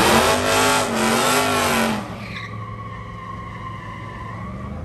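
A racing vehicle's engine revving hard over a loud rush of noise, its pitch wavering. About two seconds in it drops away sharply, leaving a quieter, steady engine drone.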